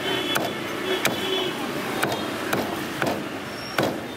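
Cleaver chopping crispy-skinned roast pork on a wooden chopping block: about six sharp chops at uneven intervals.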